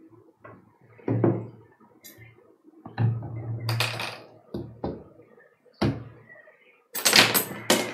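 A series of knocks and clatters of objects being handled close to the microphone, with a longer, louder rattle near the end.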